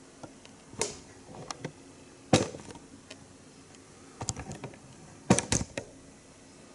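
Irregular sharp clicks and taps, a few at a time. The loudest comes about two and a half seconds in, and a quick cluster of three follows about five and a half seconds in.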